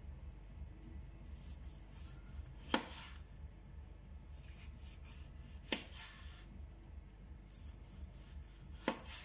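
Chef's knife slicing a tomato on a wooden cutting board: three sharp knocks of the blade meeting the board, about three seconds apart, with faint slicing sounds between.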